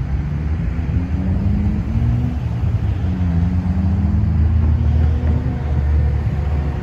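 Cars driving over a railroad crossing: a steady low rumble of engines and tyres, with an engine note rising in pitch twice as cars pull across the tracks.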